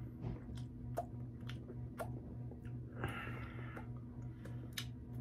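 Close-up chewing of a sandwich, with repeated wet mouth clicks about every half second and a short louder stretch of chewing about three seconds in. A steady low hum runs underneath.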